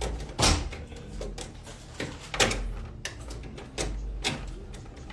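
A few separate knocks and clatters about a second or so apart, the loudest about half a second in, over a low steady room hum.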